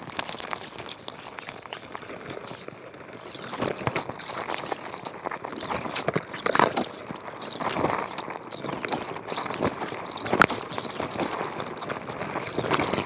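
Underwater crackling and scraping picked up through an action camera's waterproof housing as crabs clamber over the trap net and the camera, with a few sharp knocks, the clearest about ten seconds in.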